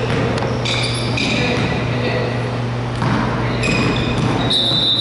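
Sneakers squeaking on a hardwood basketball court, short high squeaks several times and the loudest near the end, over a steady low hum in the large hall.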